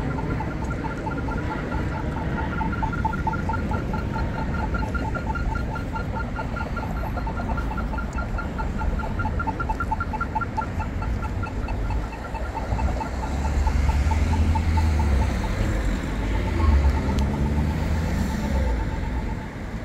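Pedestrian crossing's audible signal beeping in a fast, even rhythm, a two-pitched beep several times a second, the quick rhythm of the walk phase, which stops near the end. Traffic rumbles underneath, with a vehicle passing louder partway through.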